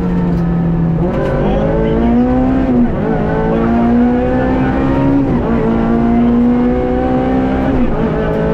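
Rally car's engine heard from inside the cabin, accelerating hard with its pitch climbing through the gears, and upshifts about one, three, five and eight seconds in.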